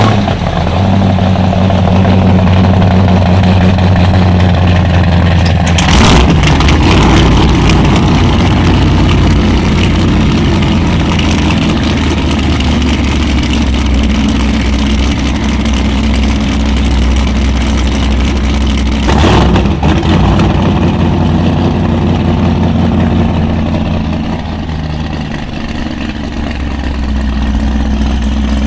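Twin Whipple-supercharged Mercury Racing 525 V8 marine engines, freshly rebuilt, idling steadily just after start-up. There are two short louder bursts, about six seconds in and again near twenty seconds.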